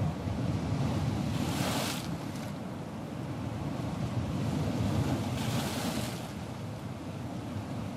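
Ocean surf: a steady low rumble of waves, with two hissing washes of breaking water, one about a second and a half in and another about four seconds later.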